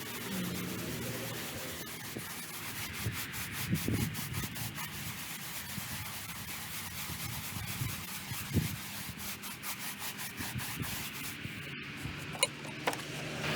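A brush scrubbing a stone gravestone during cleaning, an even scraping rub with a few sharp clicks near the end.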